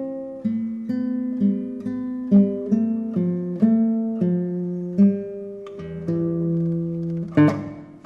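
Solo guitar music: a slow melody of single plucked notes, each ringing on, with a strummed chord near the end.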